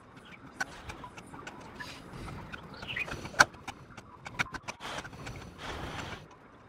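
Experimental ambient electronic sound collage: scattered clicks and crackles over soft swells of hiss, with a brief rising chirp and one sharp click about three seconds in.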